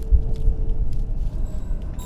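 Deep rumble with two heavy low thumps in the first half-second, over a faint steady hum that fades out after about a second and a half.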